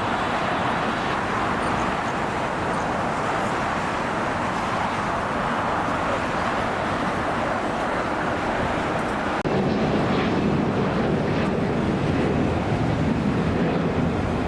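Steady roar of jet airliner engines. About nine seconds in it cuts abruptly to a louder, deeper roar.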